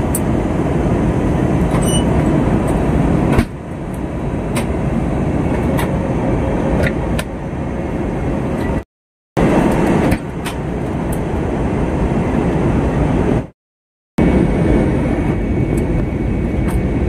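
Steady rumble of an airliner cabin in flight, the engine and airflow noise heard from a window seat, breaking off twice for a moment.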